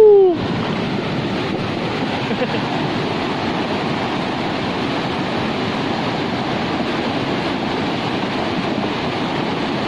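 Steady rushing of fast-flowing floodwater in a swollen river.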